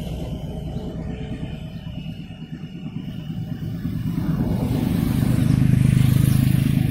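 Low engine rumble that fades a little, then swells from about four seconds in to its loudest near the end, with a strong steady hum.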